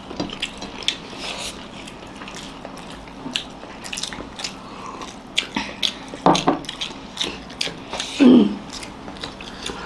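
Several people chewing and smacking their lips while eating egg biryani, with many short irregular clicks. A brief voiced sound comes about six seconds in and again about eight seconds in.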